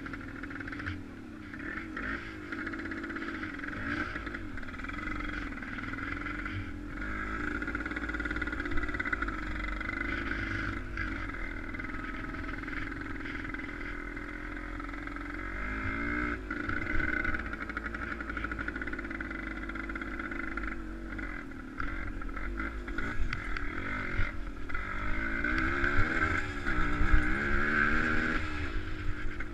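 An engine running continuously, its pitch wavering up and down, getting louder in the last few seconds.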